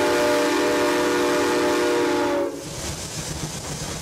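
Steam locomotive whistle blowing one long steady blast of several tones together, cutting off about two and a half seconds in; a quieter rumbling noise follows.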